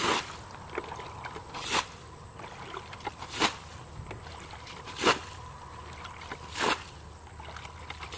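A plastic bucket bailing muddy pond water: a splash of water scooped and flung out about every second and a half, five times in a steady rhythm, as the pond is emptied to get at the fish.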